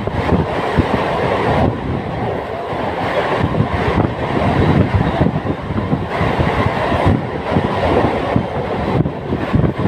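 Mumbai suburban EMU local train running at speed, heard from a non-AC coach: a steady loud rumble with continuous irregular rattling and clatter of the wheels on the track.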